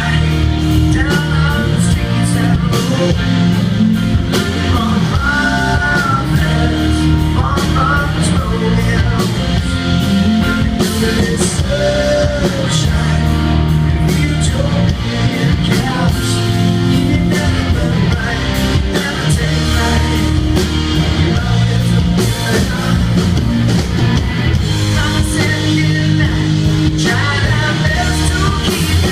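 Live rock band playing an instrumental passage between verses: electric guitars over bass and drums, with lead lines that bend in pitch.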